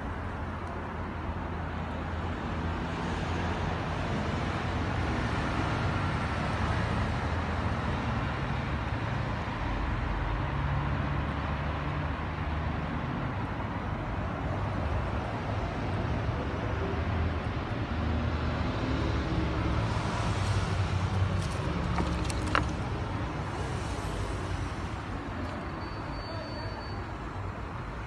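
Steady low rumble of outdoor background noise, like road traffic, with a sharp click about twenty-two seconds in.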